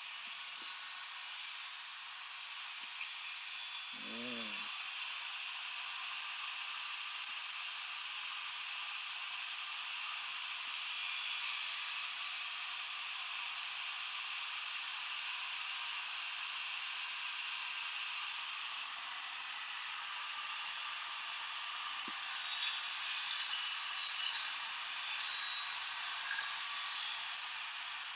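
Portable table saw running steadily while vinyl plank flooring is fed through it, a constant hiss that grows slightly busier, with light ticks, in the last third.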